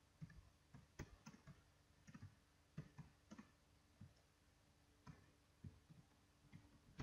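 Faint computer keyboard keys being typed: scattered, irregular clicks, about two a second.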